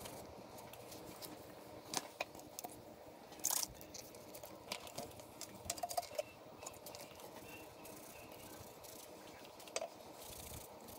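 Faint cloth rustling with scattered small clicks and taps: a rag rubbing over a metal motorcycle brake lever while it is cleaned and polished, and a tin of metal polish being handled.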